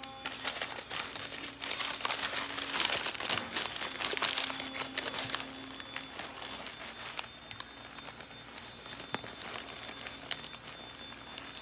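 Paper burger wrapper crinkling and rustling as it is peeled open around a chicken burger, busiest in the first half; after about six seconds only occasional light crinkles of the paper.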